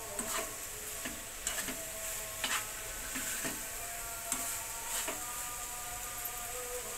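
Sliced onions and tomatoes sizzling in a kadai while a metal spoon stirs and scrapes through them, with a few sharp knocks of the spoon against the pan.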